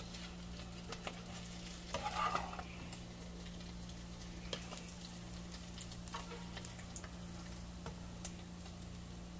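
Faint sizzle of frying oil in a skillet while fried salmon croquettes are lifted out with a spatula, with light scattered clicks and a short scrape about two seconds in.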